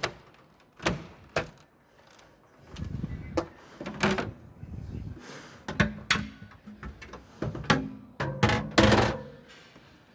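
Tumble dryer doors being pulled open and pushed shut on display machines: a string of sharp clicks and knocks, several close together, with rustling handling noise in between.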